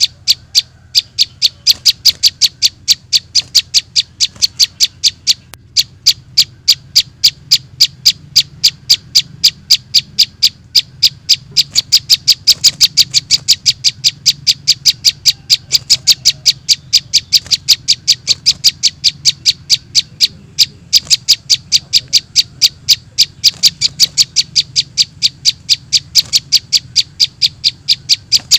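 Bird-lure recording of juvenile prinia (prenjak) begging calls: short, high chirps repeated evenly at about three or four a second, without a break.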